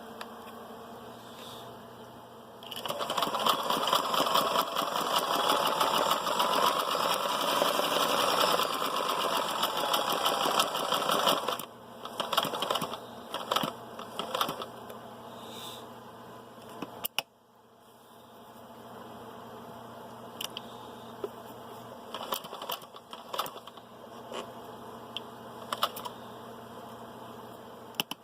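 Kenmore 158.10400 all-metal 3/4-size sewing machine sewing at speed for about nine seconds. A rapid needle clatter runs with a motor whine that rises and falls, then stops. Scattered clicks and taps follow.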